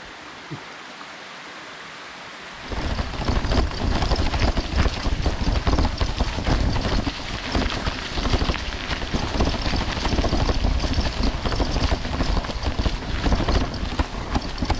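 Wind buffeting the microphone of a bicycle rider's camera while riding, a loud, low rumbling rush. It starts abruptly about three seconds in, after a quieter hiss.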